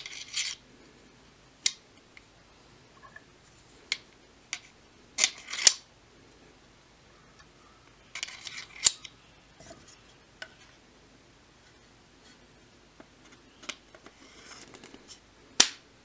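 Scattered sharp metallic clicks and clinks as copper ring fittings are slid over a steel wakizashi blade and seated against the handle, with a couple of brief scraping rubs.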